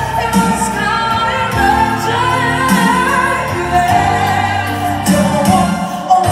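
A woman singing into a microphone, her amplified voice holding long notes that bend in pitch, over instrumental backing music.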